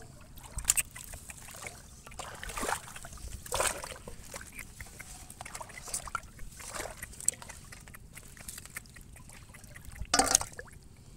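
Shallow muddy water splashing and sloshing in irregular short bursts as hands and a fish move in it, with the loudest splash about ten seconds in.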